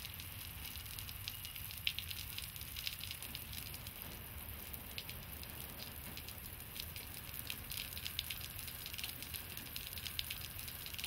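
Rain falling on a concrete sidewalk: a steady patter with many small drop ticks over a low rumble.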